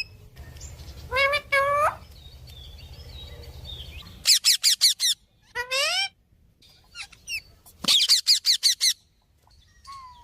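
Parrot calling: two rising calls about a second in, then quick runs of chirps around four and eight seconds, with a rising call between them and a rising whistle near the end. A low hum sits under the first few seconds.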